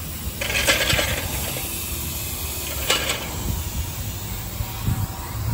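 Two short hisses of compressed air from the shop's air line: one lasting under a second about half a second in, a briefer one about three seconds in. A steady low rumble runs underneath.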